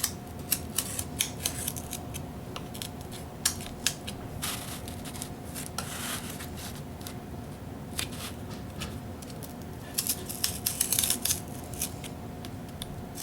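Cardboard being cut by hand: scattered sharp clicks and short scraping strokes, with a quick run of snips about ten seconds in.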